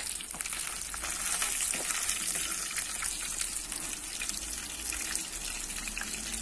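Breaded fish frying in hot oil in a frying pan: a steady sizzle with many small crackles.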